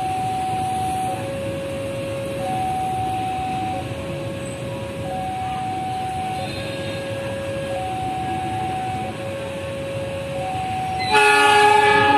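A level-crossing warning alarm sounding a steady hi-lo pattern, two tones taking turns about once a second, over the low rumble of a slowly approaching train. About a second before the end, the CC 206 diesel locomotive sounds its horn, loud and made of several tones at once.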